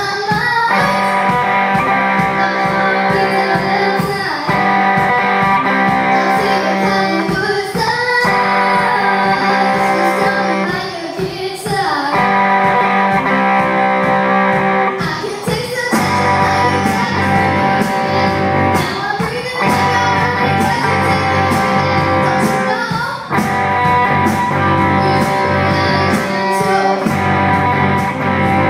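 Live band performing a pop-rock song: a young woman sings the lead over electric guitar and drums keeping a steady beat. The bass fills out about halfway through.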